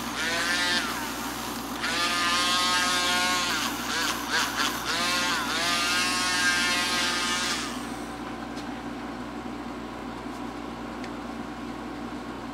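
Bench grinder's brass wire wheel brushing rust off a metal clockmaker's staking-set frame: a harsh scratching hiss, with the motor's whine dipping and recovering in pitch as the part is pressed against the wheel. About eight seconds in the part comes off the wheel, and a quieter steady hum goes on.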